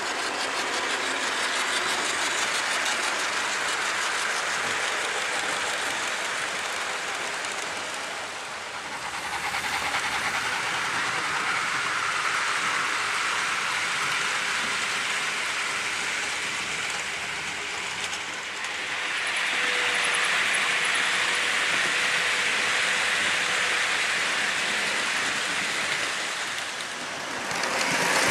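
Model trains running on the layout's track: a steady whirring of small motors and wheels on rail that fades briefly about eight seconds in and again near the end.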